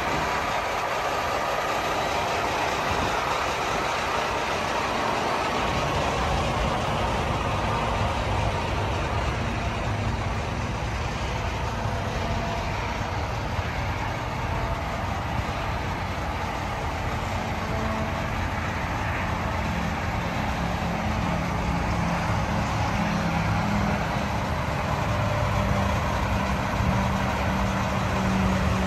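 Heavy diesel truck engine idling: a steady low rumble under a broad hiss, the rumble growing stronger about six seconds in.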